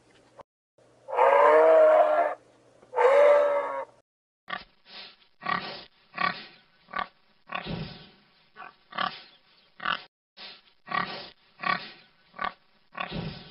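Two long pitched animal calls at the start, then a pig grunting over and over in short grunts, about two a second.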